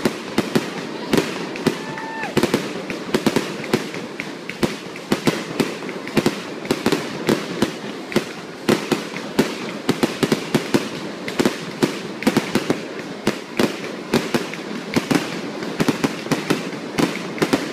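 Fireworks going off in a continuous barrage of bangs and crackles, several a second.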